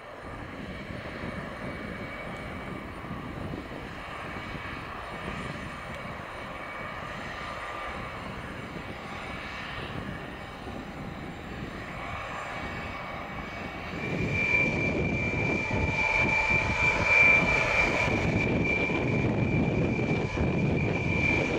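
Tupolev Tu-154M's three Soloviev D-30KU-154 turbofans running at low power on the ground. About two-thirds of the way in the sound grows louder and a steady high whine comes in over the engine noise.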